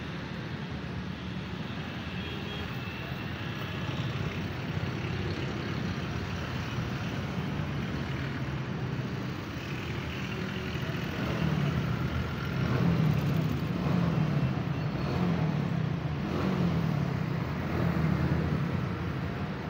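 Massey Ferguson 240 tractor's three-cylinder diesel engine running steadily. In the second half it gets louder and the pitch rises and falls about once a second, as if the throttle is being blipped repeatedly.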